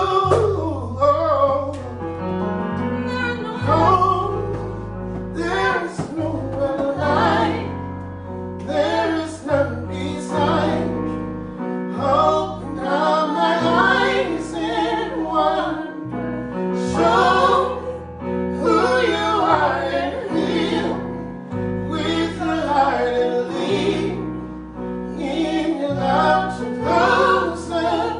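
Gospel song with voices singing over sustained bass and keyboard chords.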